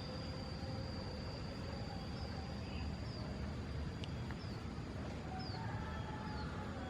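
Outdoor background with a steady high-pitched tone and a low rumble, over which a small bird gives short falling chirps about once a second. Faint, fainter calls come in near the end.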